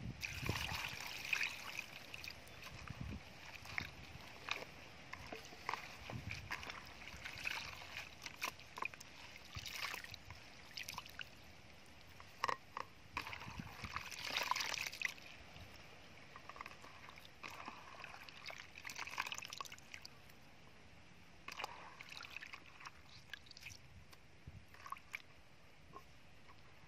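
Hands sloshing and squeezing shredded vegetables in a plastic bowl of water, with water splashing and dripping back in irregular bursts.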